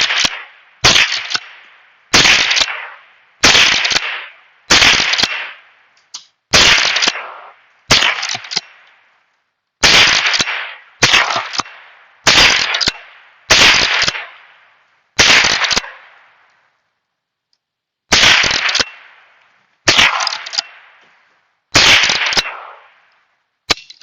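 Henry .22 long rifle carbine firing about fourteen shots, one every second or two with a longer pause before the last three. Each shot is a sharp crack followed by a decaying echo. The magazine is being emptied.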